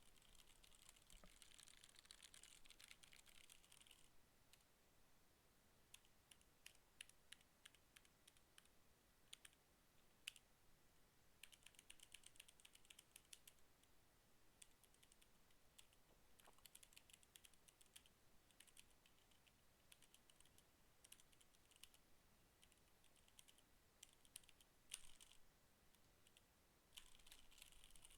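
Redragon K552 mechanical keyboard with red switches being typed on, faintly: quick runs of keystrokes broken by single key presses and short pauses.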